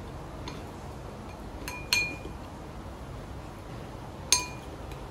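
Eating utensil clinking against a dish: a few light taps, then two sharper clinks with a brief ring, about two seconds in and again near the end.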